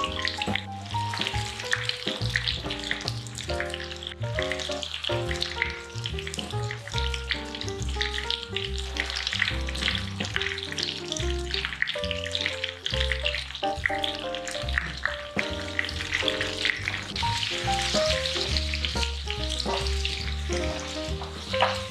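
Sliced bananas sizzling and crackling in melted margarine in a pan. Background music with a simple melody plays underneath.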